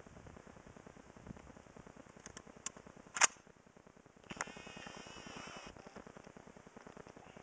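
A single AR-15 rifle shot, a sharp crack about three seconds in, with a fainter click shortly before it.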